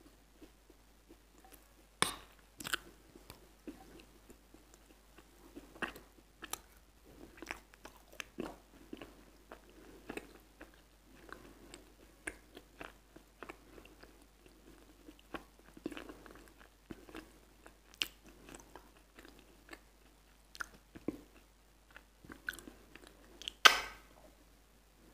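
Close-miked eating sounds of a creamy dessert taken by spoon: wet chewing and many small smacking clicks from the mouth, with a louder sharp clatter about a second before the end.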